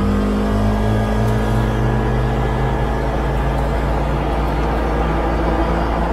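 Polaris Ranger 900 Crew side-by-side driving at a steady speed, its engine running with an even drone heard from inside the enclosed cab.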